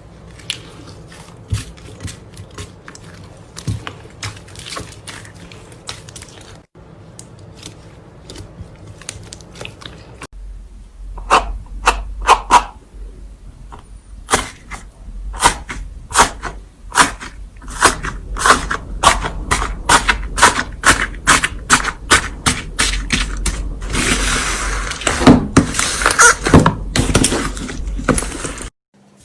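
Slime being squeezed and pressed by hand, making repeated sticky clicks, pops and crackles, which grow louder and denser partway through.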